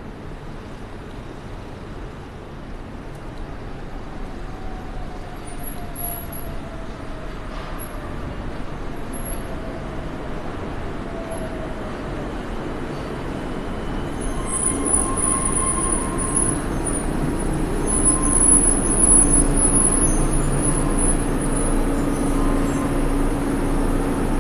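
Tama Toshi Monorail 1000 series straddle-beam monorail train running in and braking to a stop at the platform, its running noise growing steadily louder as it nears. About fourteen seconds in, steady whining tones and a high hiss join the rumble as it slows.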